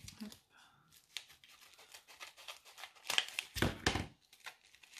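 Packaging being torn open and crinkled by hand: a run of short crackles and rips, loudest in a burst about three seconds in.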